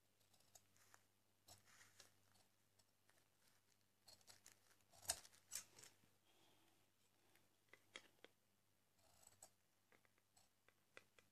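Metal tailor's scissors snipping through four layers of folded cotton fabric, in faint, irregular cuts with the loudest snips a little past the middle.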